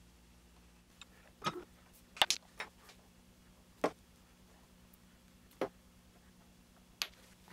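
Scattered light clicks and knocks, about seven in all, the loudest a quick double knock about two seconds in: the bent aluminum rod and black acetal bending mandrels being handled and lifted out of a steel bench vise. A faint steady hum lies underneath.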